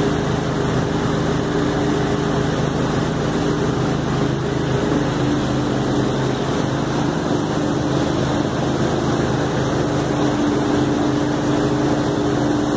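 Pressure washer's engine running steadily at a constant pitch while the machine sprays.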